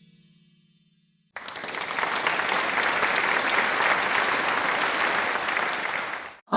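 Applause from a crowd: dense, even clapping that starts abruptly about a second in and cuts off just before the end. Before it, a low keyboard note dies away.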